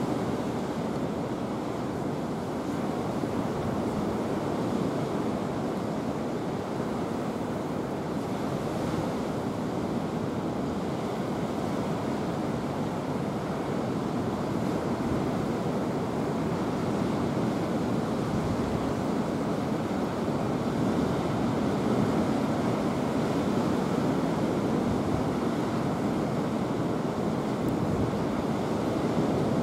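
Steady rushing outdoor noise, even throughout, with no distinct sounds standing out.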